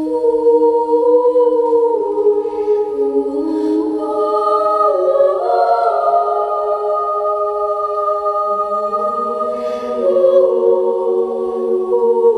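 Soundtrack music: a wordless choir of voices holding long, slow chords that shift to new notes every second or two.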